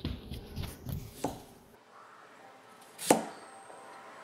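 A kitchen knife cutting through a peeled vegetable and striking a plastic cutting board: one sharp chop about three seconds in. Before it, a low rumbling noise with a few clicks, which cuts off suddenly a little under two seconds in.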